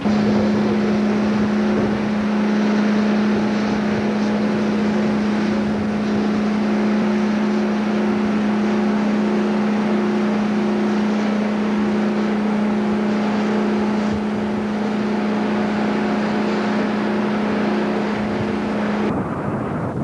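A tug's diesel engine running steadily, a constant low hum over a rushing noise; it cuts off abruptly about a second before the end.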